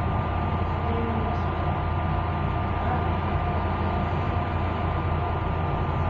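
15 kg front-loading washing machine running its cycle: a steady machine hum with a thin, constant tone above it.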